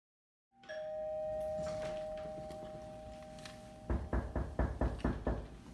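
Electronic doorbell sounding a steady two-pitch tone for about three seconds, then a quick run of about eight thumps.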